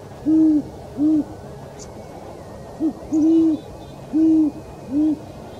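Great horned owl hooting: six deep hoots in two groups, two near the start and four from about three seconds in, some notes drawn out longer than others, over a steady hiss.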